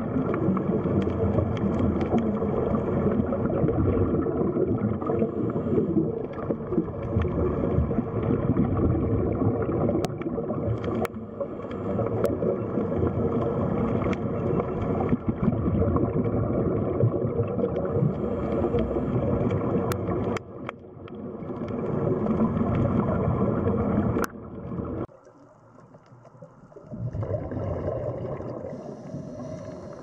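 Underwater noise picked up by a diving camera: a dense rumble and gurgle of water with a faint steady hum and a few sharp clicks. It drops away suddenly about 25 seconds in.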